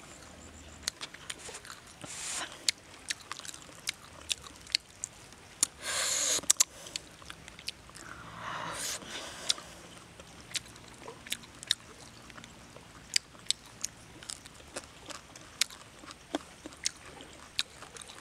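Close-up chewing and biting into a charred roasted frog, with many short crisp crunches and mouth clicks, and a longer, louder crunch about six seconds in.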